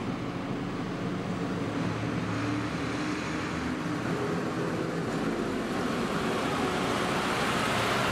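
Heavy dump truck's diesel engine running as it drives up the road and passes close by, growing gradually louder, with tyre noise rising as it nears.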